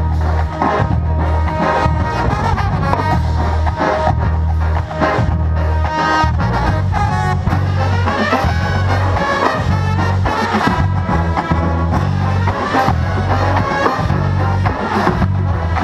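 School marching band playing in full: brass section with trumpets and trombones over a heavy low bass line and drums, loud and continuous.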